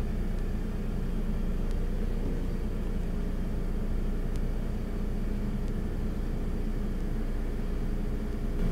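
A steady low machine hum, even throughout, with a few faint light ticks over it.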